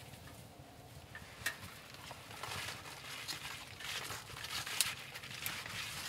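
Rustling of conifer boughs and small crackles and snaps of dry twigs as the boughs are pushed into a woven twig wreath frame by hand, a scatter of sharp little clicks that gets busier about two seconds in.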